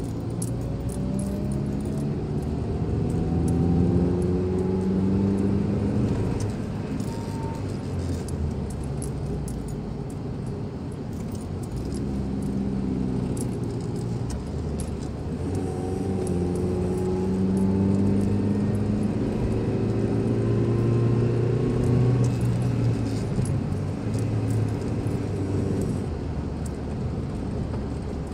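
Car engine and road noise heard from inside the cabin while driving. The engine's pitch climbs twice as the car accelerates, over the first several seconds and again in the second half, with light rattling from the cabin.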